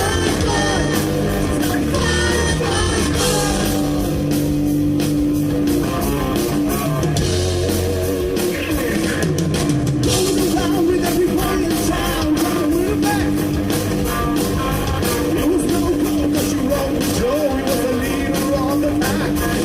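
A live rock band playing: guitars, a drum kit and a singing voice, loud and without a break.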